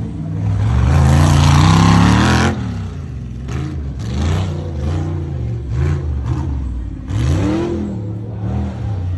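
Jeep Wrangler's LS3 V8 revving: a long climb in pitch that cuts off suddenly about two and a half seconds in, then a string of shorter throttle rises and falls.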